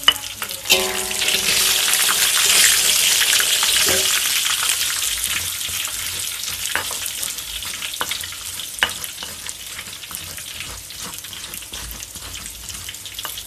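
Peanuts frying in shallow oil in a wok, sizzling. The sizzle swells about a second in and then slowly dies down, with scattered clinks of a metal spoon stirring against the wok.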